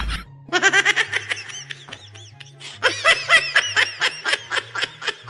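Quick, high-pitched giggling laughter in two runs over background music with a stepping bass line.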